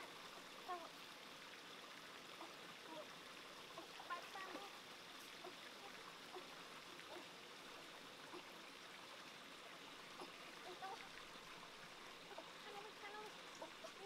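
Faint, steady trickle and rush of a shallow rocky stream, with a few brief faint voices.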